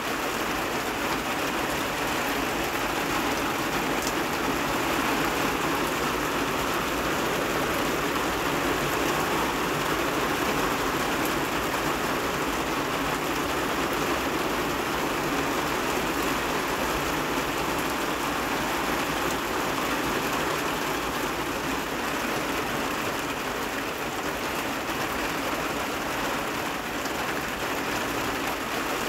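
Heavy rain pouring steadily, an even, unbroken hiss with no let-up.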